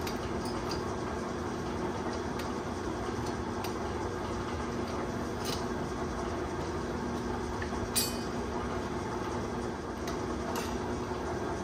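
Shop fans running with a steady hum, with a few sharp metallic clinks of bolts and hand tools being worked in an engine bay, the loudest about eight seconds in.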